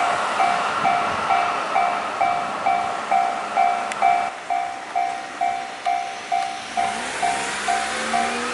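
Japanese railway level-crossing warning bell ringing steadily, about two electronic dings a second, over the noise of a train running past that drops away about four seconds in. Near the end a whine rising in pitch joins it.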